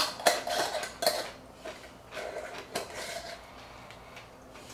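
A glass pickle jar clinking and knocking as it is handled. There are several sharp clicks in the first second, and more clatter around two to three seconds in.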